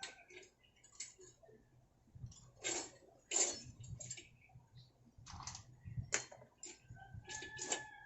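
Irregular clicks, taps and scrapes of hand tools and small parts being handled during repair work on a small engine.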